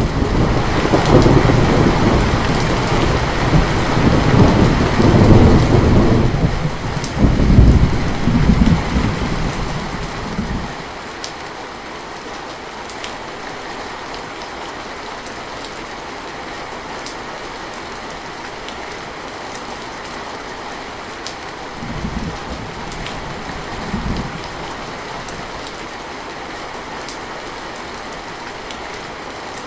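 Steady rain with a loud thunderclap that breaks right at the start and rolls on in several swells, dying away about ten seconds in. Two brief, fainter rumbles of thunder follow about two-thirds of the way through.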